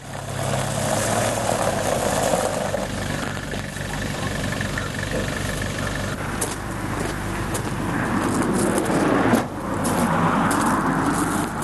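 Minibus engine running as the van pulls up on gravel, with scattered clicks and knocks in the second half.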